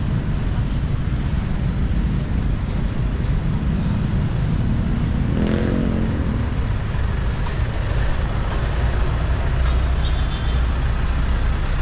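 Street traffic: vehicle engines and tyres making a steady low rumble, with one vehicle passing close about halfway through, its engine tone briefly standing out.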